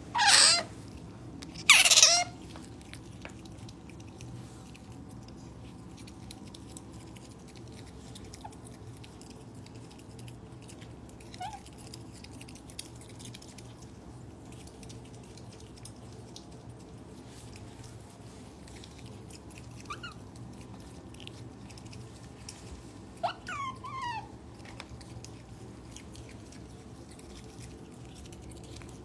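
Pet otter giving two loud, high, wavering squeaks about a second and a half apart, then a few faint short squeaks much later, with quiet crunching of dry snack pellets between the calls.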